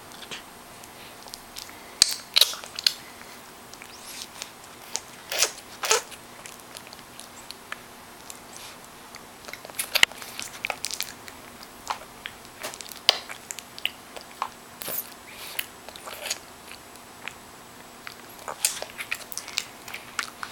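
A baby gnawing and mouthing a flower-shaped teething ring: irregular wet clicks, smacks and crackles of gums and saliva on the toy, coming in scattered clusters with short gaps. The steady gnawing is what a possibly teething baby does.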